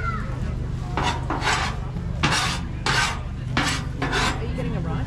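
A metal utensil scraping across a cooking griddle in about six separate rasping strokes, over a steady low hum.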